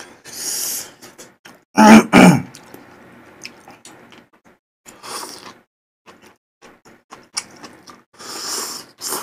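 A man coughs or clears his throat twice in quick succession about two seconds in, irritated by the chili oil of spicy malatang. Around the coughs come short hissy slurps as he draws noodles into his mouth, with small clicks between.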